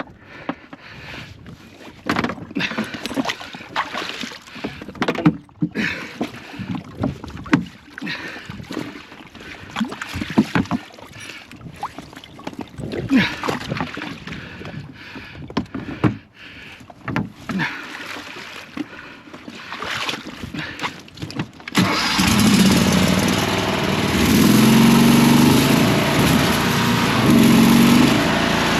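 Irregular splashing and knocking from a small boat moving through marsh water. About three quarters of the way through, a boat motor starts and runs steadily.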